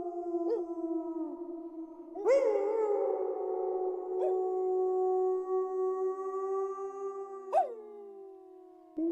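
Wolves howling in chorus: several long, overlapping howls held at different pitches, with new voices breaking in about two seconds in and again near the end.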